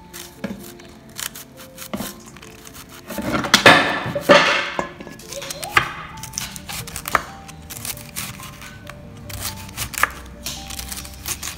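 A kitchen knife slicing cabbage thinly on a wooden chopping board: a run of quick short cuts, under background music. About three seconds in, a louder rustling noise lasts a second or two.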